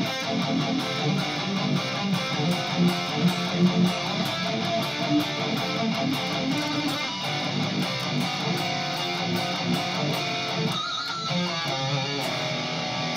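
Distorted electric guitar playing a metal riff: power chords picked in a steady rhythm, with the second note of each chord moved for a wicked, evil sound, then some higher notes. The playing thins out briefly about eleven seconds in.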